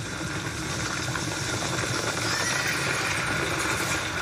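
Soundtrack of a period epic film teaser: a dense, steady wash of sound effects with a few pitches that glide up and down on top.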